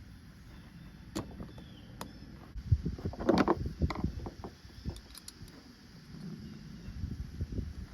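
Scattered clicks, clinks and knocks of a pump and hand tools being handled on a workbench, with a busier cluster of knocks and a short scraping squeak about three seconds in.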